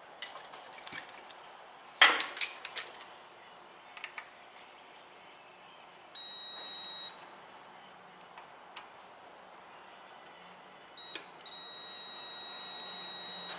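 A digital multimeter's continuity tester beeps with a steady high tone as the probes touch the converter's wires: a beep of about a second six seconds in, a short blip near eleven seconds, then a beep of about two seconds near the end. Each beep means a closed circuit, continuity through the tested wiring. About two seconds in there is a brief burst of knocks and rattles.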